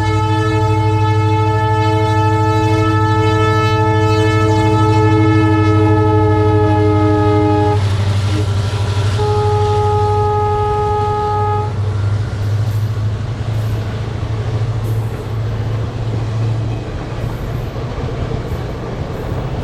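The multi-tone air horn of an EMD WDP 4 diesel locomotive sounds one long blast of about eight seconds, then, after a short gap, a second blast of about two and a half seconds, over the steady running of its 16-cylinder two-stroke diesel engine. Near the end the engine sound fades and the train's wheels are heard rolling on the rails.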